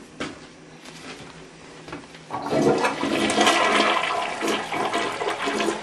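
A toilet flushing: quiet at first, then a loud rush of water starts about two seconds in and keeps going.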